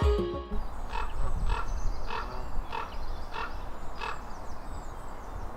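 A bird calling in a regular series, six short harsh calls about half a second apart, over a low steady rumble.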